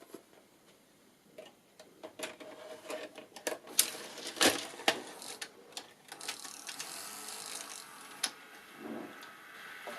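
Mechanism of a Mitsubishi S-VHS video recorder: a run of irregular clicks and clacks, loudest around four to five seconds in, then a steady motor whirr from about six seconds in.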